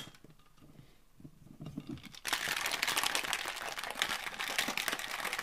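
Ice cubes rattling inside a stainless steel cocktail shaker being shaken hard. The shaking starts about two seconds in and keeps going as a dense, steady rattle.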